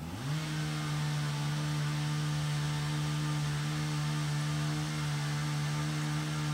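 A small motor spinning up within a fraction of a second, then running at a steady pitch with a hum and a hiss.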